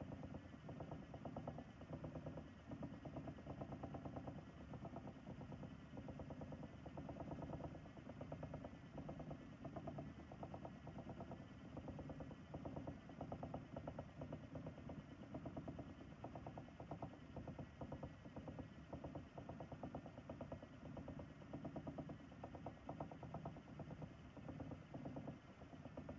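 Ashford e-Spinner electric spinning wheel running steadily, its small motor turning the flyer and bobbin with a faint, even whir.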